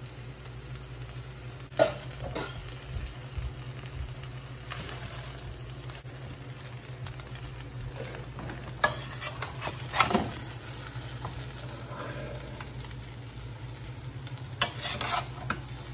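A metal spatula stirs and scrapes fried rice and vegetables around a steel wok over a gas flame, with a low sizzle of frying. A few sharper scrapes and knocks of the spatula against the wok stand out, about two seconds in, around nine and ten seconds, and near the end.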